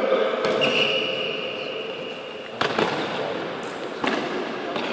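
Futsal ball being kicked on a sports-hall court, two sharp thuds about a second and a half apart that echo in the hall. Before them a steady high tone lasts about two seconds.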